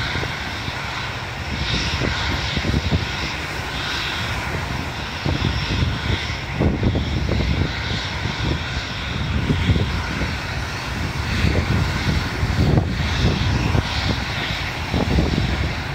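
Engines of an aeroplane on final approach, heard as a steady, still-distant drone, over the wash of waves breaking on the beach and an irregular low rumble.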